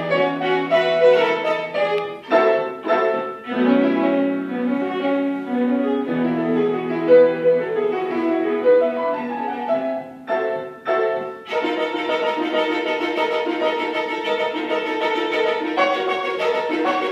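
Violin and grand piano playing a classical duo live, with sustained violin lines over piano notes and chords. About two-thirds of the way through the music grows fuller and denser after a brief thinner moment.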